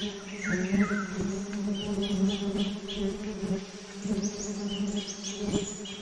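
Wasps buzzing in a steady low drone around their paper nest, stirred up by an Oriental honey buzzard tearing into it. Small birds chirp over it in short runs of high notes.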